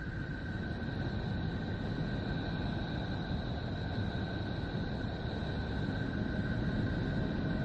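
A space-sound recording presented as the sound of Neptune: a steady, deep rumbling drone with a faint hiss and two thin, steady high whistling tones held over it.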